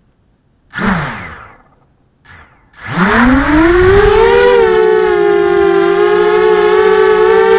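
FPV quadcopter's electric motors and propellers: two short throttle blips that die away, then the motors spool up with a rising whine and settle into a loud, steady multi-tone whine as the drone lifts off, heard from its onboard camera.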